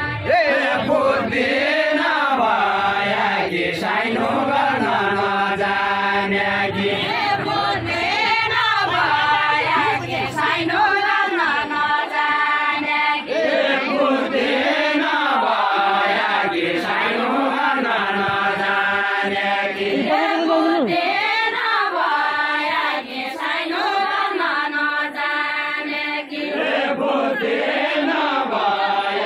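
Deuda folk song from Far-Western Nepal: voices singing a chant-like melody in long, gliding, repeating phrases.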